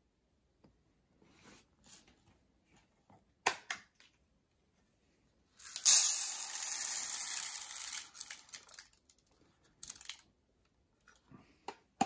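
Dry uncooked rice poured from a robot-vacuum dustbin into a paper bowl: a loud rushing hiss of falling grains lasting about three seconds, tailing off into scattered ticks. A few sharp plastic clicks come before and after the pour.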